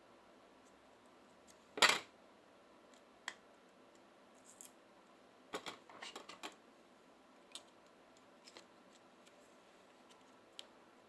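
Scattered small clicks and snaps of tools and parts being handled during a smartphone repair, with one louder snap about two seconds in and a quick cluster of clicks a little past the middle.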